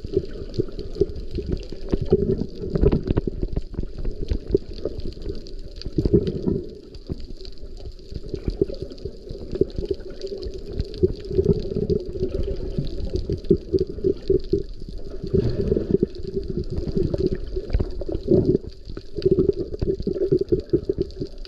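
Muffled water sloshing and gurgling heard from underwater, with a continual crackle of small clicks.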